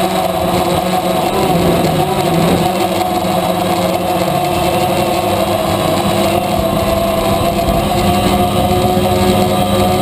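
DJI Phantom quadcopter's motors and propellers humming steadily, a few fixed pitches that waver slightly in the first couple of seconds.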